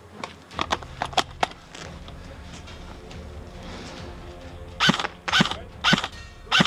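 Airsoft gun shots fired one at a time, a sharp crack about every half second starting near the end. Before them come a few lighter clicks over a steady hum.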